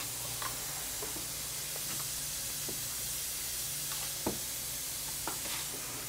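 Steady hiss of background room noise with a low hum, broken by a few faint soft taps and clicks; the clearest comes a little after four seconds in.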